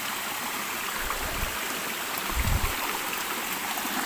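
A small rocky stream running, a steady rush of water over stones, with two low thumps about a second and two and a half seconds in.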